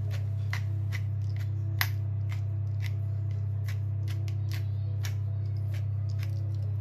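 Hand pepper mill grinding black peppercorns: a steady run of short, crisp clicks, about three a second, as it is twisted, over a steady low hum.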